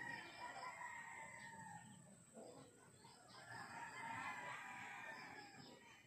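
Faint rooster crowing: two long drawn-out crows, the first at the start and the second from about three seconds in.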